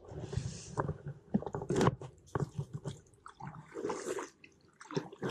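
Close handling noise on a plastic kayak: an irregular run of knocks, clicks and rustles as the camera and gear are moved around.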